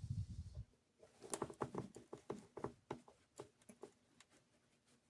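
Small screwdriver tip punching a hole through a thin plastic sheet on a wooden bench: a quick run of light taps and scratches, fading out near the end.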